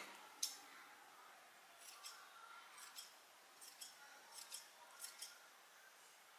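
Scissors snipping faintly through the threads of a yarn pompom to trim it, a string of short crisp cuts at irregular spacing, some in quick pairs.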